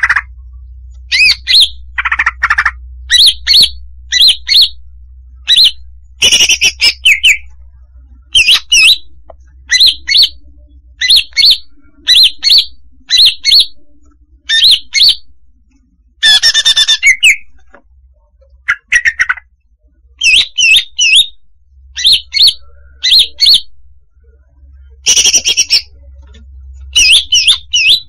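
Female greater green leafbird (cucak hijau) calling: short, clear chirps in quick clusters about every second, mixed with a few lower notes and some harsher, louder squawky calls.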